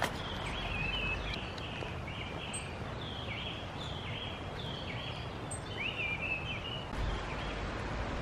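A bird calling over and over in short falling notes, several a second, stopping about seven seconds in, over a steady rush of wind.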